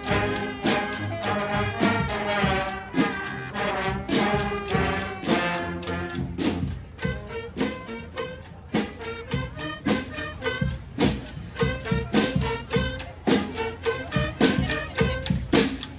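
Street brass band playing a song, horns over a steady drumbeat. About six seconds in, the horn parts thin out to a held note while the drums keep the beat.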